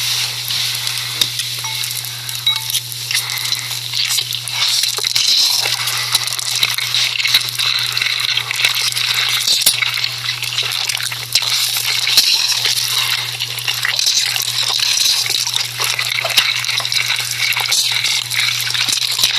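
Cooking sounds from a noodle ASMR video: a dense, steady sizzling hiss of liquid in a hot pan, full of small crackles and clicks. A steady low hum runs underneath.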